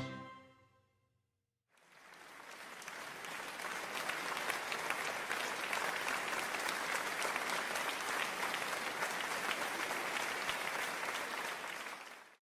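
A crowd applauding: clapping that swells over a couple of seconds, holds steady and stops abruptly near the end. Before it, the last notes of music fade out.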